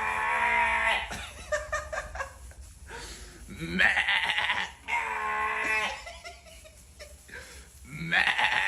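Sheep bleating repeatedly: about four long, loud calls of roughly a second each, with pauses between them.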